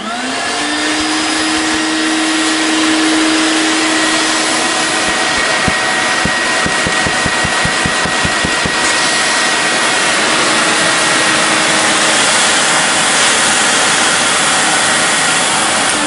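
Electrolux Grand Marquise canister vacuum cleaner switched on, its motor spinning up within the first half second and then running steadily with a loud rush of air through the cloth hose. The hose has a damaged spot that leaks air and lowers suction at the hose end. A hand held over the open end for a suction check makes a fluttering, pulsing sound around the middle, and the motor's pitch falls away at the very end.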